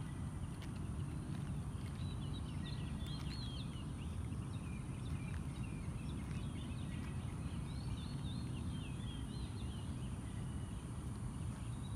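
Birds chirping and twittering in many short, quick calls over a steady low rumble.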